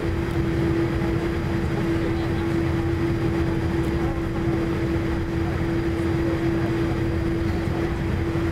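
Steady cabin noise of a Boeing 787 taxiing, heard from a window seat over the wing: a low rumble with a steady droning hum from the engines and cabin systems.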